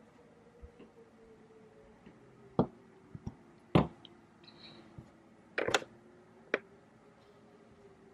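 Heeled sandals clicking on a hard floor and the camera being handled: a handful of scattered sharp clicks and knocks, loudest about four seconds in and again near six seconds, over a faint steady hum.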